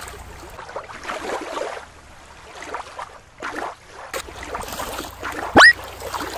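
Water splashing and sloshing as a toy orca is swept through shallow water, then fainter broken noise. About five and a half seconds in comes one short, very loud squeal that rises steeply in pitch.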